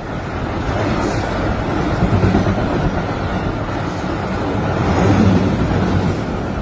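Passenger train of LHB coaches running on the track: a steady rumble of wheels on rails, with no horn sounding.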